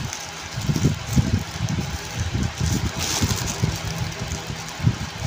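Foil balloon crinkling and rustling in the hands as a straw is worked into its inlet valve to deflate it, with a louder crinkle about three seconds in, over a faint steady low hum.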